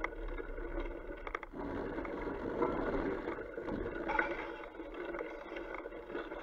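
Fat bike's wide tyres rolling over wet, rutted sand and mud: a steady gritty, sloshing rush with small clicks and rattles from the bike. The noise grows fuller for about two seconds near the middle.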